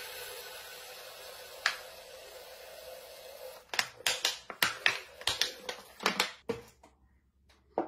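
White vinegar pouring from a plastic bottle into a plastic measuring jug, a steady splashing hiss that fades away over the first few seconds. Then a quick run of sharp plastic clicks and knocks as the bottle is taken away and the jug is handled, with one more click near the end.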